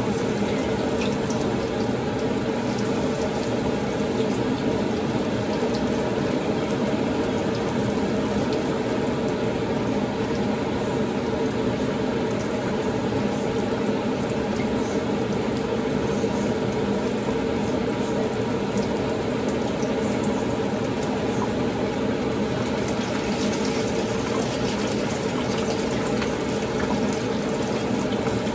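Battered whiting fillets frying in hot oil in a skillet: a steady, even sizzle that holds without a break.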